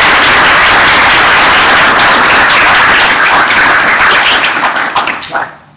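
Lecture-hall audience applauding loudly at the end of a talk, thinning to a few last claps and dying out near the end.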